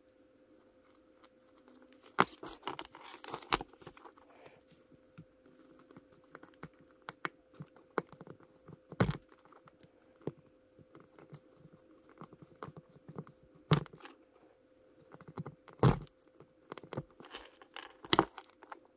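Close-up handling of a plastic action figure and a hobby servo: scattered small clicks, scrapes and rustles of plastic parts being fitted and trimmed with a hobby knife, with about six sharp knocks. A faint steady hum runs underneath.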